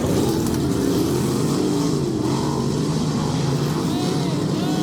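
Dirt-track race cars running on the oval, a steady engine drone with engine notes rising and falling in pitch as cars go by.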